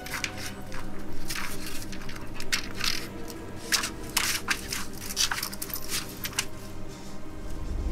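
Irregular crunching, shuffling footsteps with the rustle of plastic shoe covers as a person creeps along and crouches, over a low, steady musical drone.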